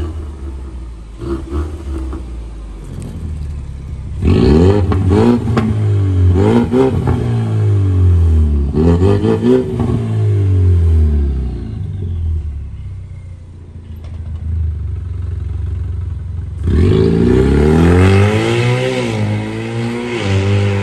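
Ford Mustang with a tuned aftermarket exhaust, idling with a low rumble and then revved in a string of blips from about four seconds in. Near the end it rises again in one long, loud run of revs as the car pulls away.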